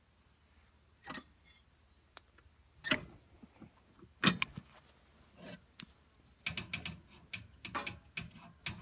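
Scattered metallic clicks and clinks of hand tools being handled on the mower, a few single knocks and then a quicker run of small clicks near the end.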